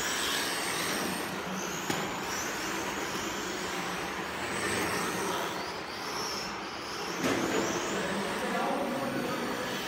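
Radio-controlled touring cars racing on a track, their motors giving short high whines that rise and fall in pitch as the cars speed up and slow down through the corners. There is a click about two seconds in and a louder patch past the middle.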